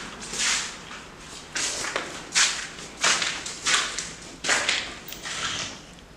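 Footsteps, a scuffing step roughly every two-thirds of a second, stopping shortly before the end.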